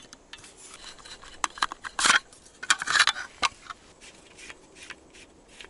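Hand ice auger being handled and its folding crank handle opened and locked: irregular metal clicks and knocks with scraping and rustling, loudest about two and three seconds in.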